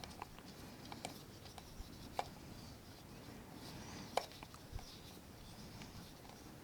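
Faint, scattered clicks of a multi-tool's Phillips screwdriver tip being fitted into small screw heads, with the two sharpest clicks about two and four seconds in.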